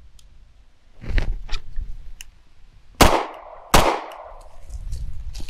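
Two handgun shots about three-quarters of a second apart, each with a short echo, with a couple of soft knocks a second or two before them.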